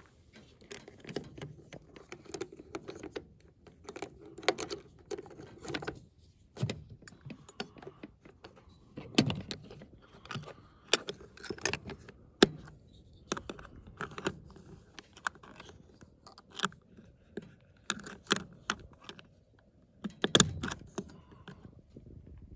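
Latches and lid of a Sheffield Field Box plastic lock box being worked by hand: many irregular clicks, snaps and knocks, one sharp snap about halfway through, with a small metal padlock clinking against the latch.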